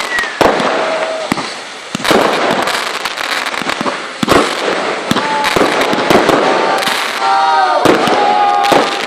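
Aerial fireworks going off in quick succession: repeated sharp bangs over constant crackling, with a few pitched, whistle-like tones in the second half.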